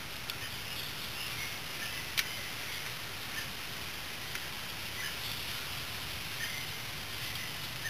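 A few light clicks and taps of metal engine parts being handled by hand around the cam sprocket, the loudest about two seconds in, over a steady background hiss with faint high chirps.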